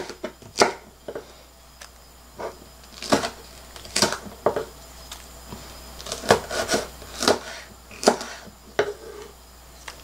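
Kitchen knife slicing chili peppers on a wooden cutting board: sharp, irregular knocks of the blade against the board, a few strokes at a time with short pauses.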